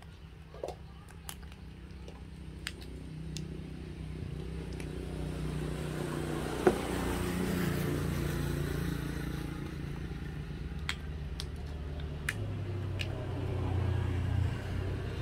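A motor vehicle engine running steadily, growing louder toward the middle and again near the end. Scattered small clicks and crinkles of plastic snack packets being handled, with one sharper knock about halfway.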